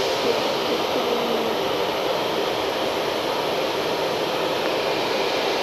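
Hair dryer blowing steadily: a constant rush of air with a faint motor whine.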